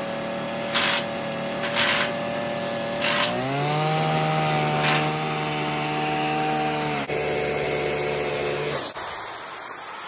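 Homemade turbo wood burn barrel running under boost: a steady machine drone that steps up in pitch about three seconds in, with a few short hissy rushes in the first five seconds, then a high whine that climbs steadily in pitch over the last few seconds as the turbo spools up.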